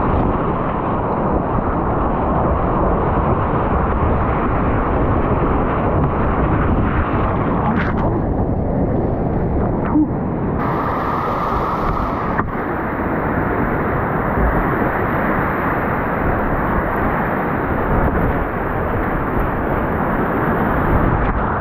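Steady, loud rush of whitewater rapids around a kayak running them, with spray splashing over the boat and camera.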